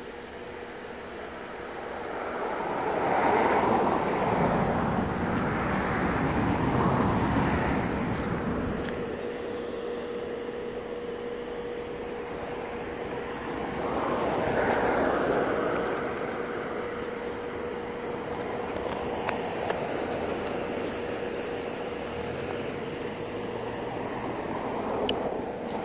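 Road traffic: several vehicles passing one after another, each swelling up and fading away over a few seconds, over a faint steady hum, with faint bird chirps.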